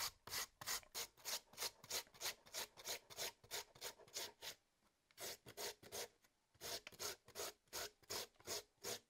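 An old cucumber being shredded on a metal hand grater: short rasping strokes, about three a second, with two brief pauses around the middle.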